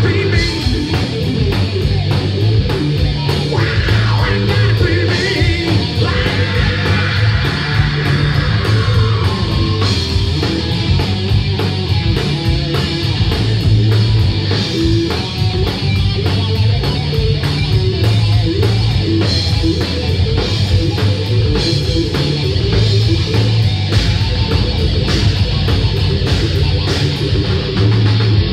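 A live rock band playing loud: electric guitar over a steady, busy drum-kit beat, without vocals.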